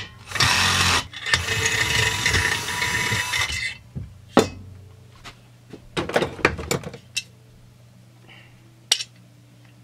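The muffler of a Husqvarna 455 Rancher chainsaw being unbolted and lifted off: loud metal scraping and rattling for about three seconds. Then several knocks and clatters as the parts are set down on the bench.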